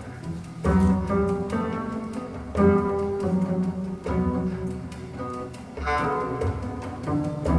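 Recorded music played back over a high-end stereo loudspeaker system: a slow string piece with deep low notes, a new note or chord struck about every second or so.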